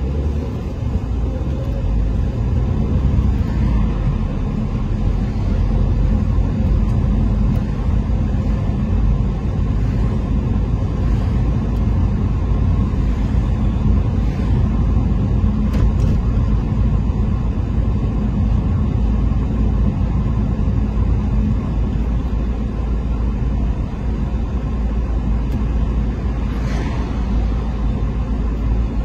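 Steady low rumble of a moving car's road and engine noise.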